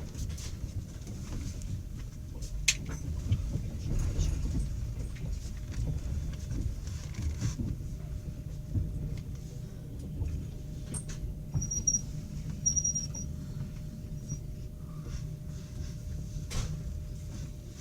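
Passenger train carriage heard from inside: a steady low rumble with scattered knocks and clicks, and two brief high squeaks about twelve seconds in.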